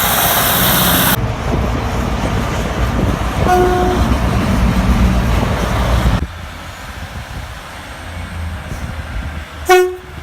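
Train horn giving two short toots, one about three and a half seconds in and one near the end, over the loud rumble and hiss of a train that cuts off suddenly about six seconds in, leaving a quieter low hum.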